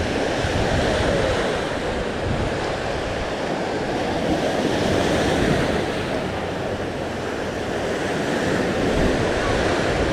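Sea waves washing onto a sandy beach in a steady, gently swelling rush, with wind buffeting the microphone.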